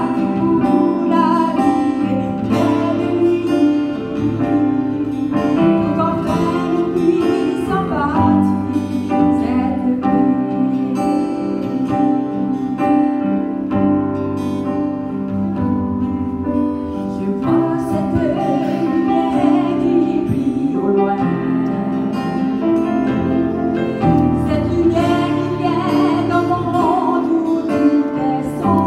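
A woman singing a Christian song into a microphone, amplified, over steady instrumental accompaniment.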